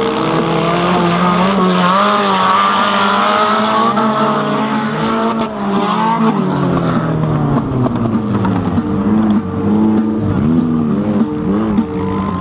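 Old race cars' engines revving and running hard on a dirt track, the pitch rising and falling with the throttle, with tyres skidding. Background music with a repeating pattern takes over in the second half.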